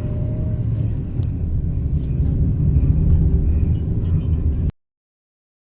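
Car driving, a steady low rumble of engine and road noise. It cuts off suddenly near the end into complete silence.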